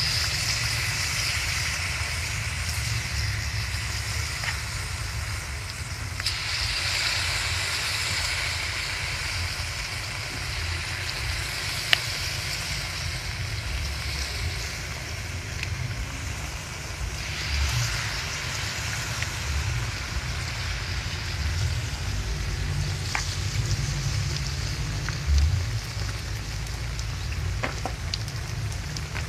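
Batter-coated breadfruit slices deep-frying in hot coconut oil, a steady crackling sizzle that swells about six seconds in and again after about seventeen seconds. Now and then there is a sharp click, one louder knock near the end, and a low steady rumble underneath.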